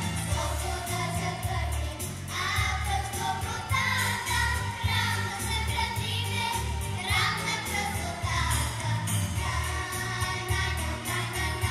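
A children's vocal group, young girls singing together into microphones over a recorded backing track with a steady beat and bass line, amplified through the hall's sound system.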